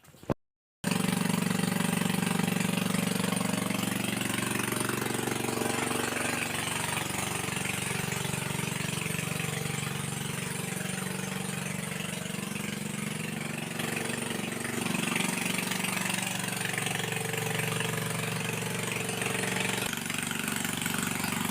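Water tanker's engine running steadily, powering the pump that sends the water through the pipe into the pool. It starts about a second in.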